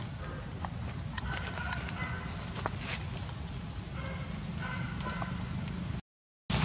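Outdoor ambience of a steady high insect drone with short high chirps and scattered light clicks over a low rumble. It cuts to silence for about half a second near the end.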